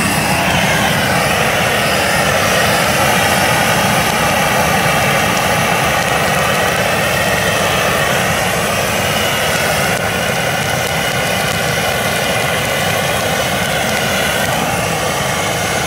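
Propane weed torch burning at full flame: a loud, steady rushing noise with faint steady tones in it.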